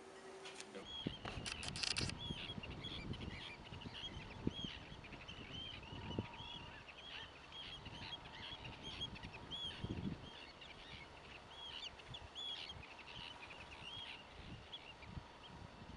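A flock of birds calling: many short, high calls repeating over and over, fairly faint, with a low rumble and a few soft thumps beneath.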